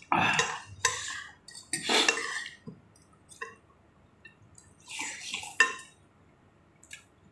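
Eating chicken noodle soup from a bowl: four noisy slurps of broth and noodles, with a few short clinks of a spoon against the bowl.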